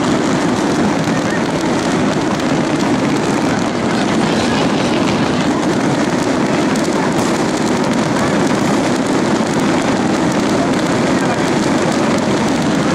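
Dense, continuous barrage of fireworks rockets: a steady loud hissing and crackling din with no let-up.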